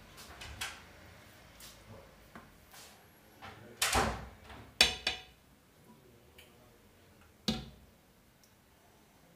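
Stainless-steel cooking pots and a spoon knocking and clinking on the stovetop as the cook stirs and handles the pots: a few light taps, two loud clanks about four and five seconds in, the second with a short metallic ring, and another knock about seven and a half seconds in.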